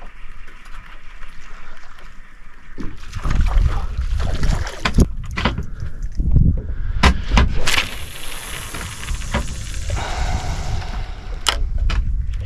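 A fishing cast with rod and reel: handling knocks and clicks, then a high hiss of line running off the reel for a couple of seconds, and a sharp click near the end. A low rumble of wind on the microphone runs underneath.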